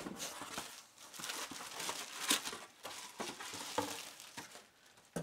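Plastic wrap crinkling and rustling in irregular bursts as a stainless steel pan lid is pulled out of it and unwrapped.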